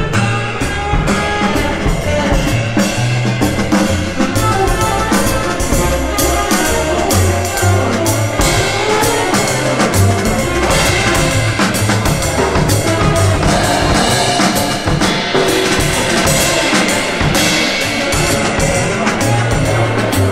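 Recorded music with a drum kit keeping a steady beat over deep bass notes, played back through MartinLogan Neolith electrostatic loudspeakers.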